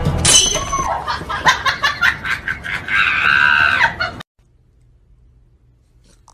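A husky's high-pitched, scream-like cries mixed with scattered clicks and taps. They cut off abruptly about four seconds in, leaving near silence.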